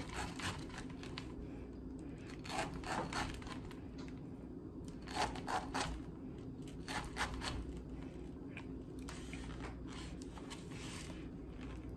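A kitchen knife slicing into the flesh of a halved pineapple, scoring it in crosswise cuts: quiet, short, wet cutting strokes in small groups of two or three, every second or two.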